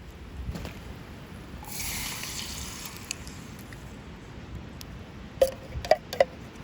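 Liquid poured into an aluminium hangō mess tin for about a second and a half, then a metal utensil clinking sharply against the tin several times near the end.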